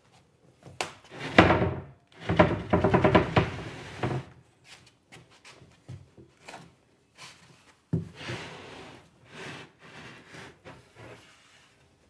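A tall plywood cabinet being pivoted and dragged across the floor by hand. There is a knock about a second and a half in, then about two seconds of juddering scraping as it is dragged, another knock near eight seconds, and lighter wooden knocks after that.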